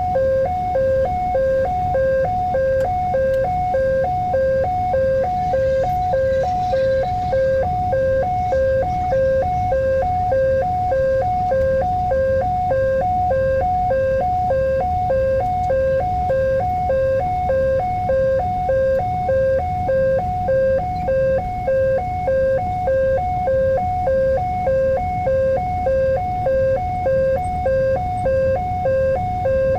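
Railway level-crossing warning alarm sounding: an electronic two-tone signal alternating evenly and quickly, over a low rumble. It is the signal that a train is approaching and the crossing is closed.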